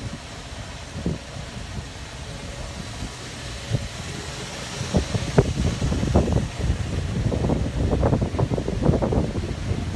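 Wind rumbling on the microphone, with a run of irregular knocks and thumps from about five seconds in.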